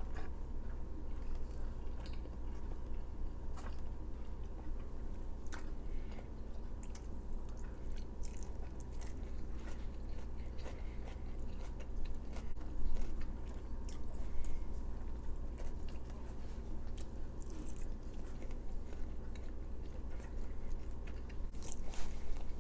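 Close-miked chewing and biting of Chinese takeout food, with crisp little mouth clicks and crunches, over a steady low hum.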